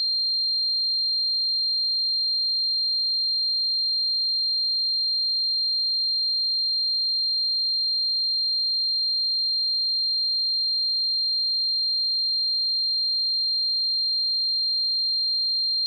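Synthesized tinnitus ringing: one steady, high-pitched pure tone that never changes in pitch or loudness.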